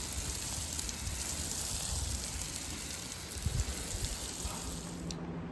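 Water spraying from a garden hose onto a garden bed, a steady hiss that cuts off suddenly near the end.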